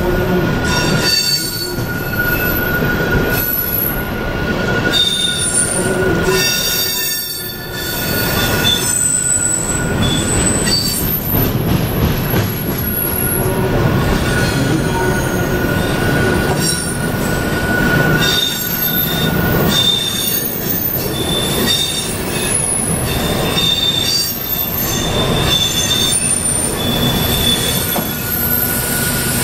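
Freight train of hopper cars rolling across a steel trestle: a steady rumble and clatter of wheels on the bridge, with thin, high wheel squeals coming and going.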